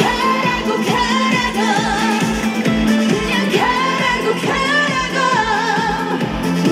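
Live Korean pop music through a stage sound system: a wavering sung melody with vibrato over a steady kick-drum beat.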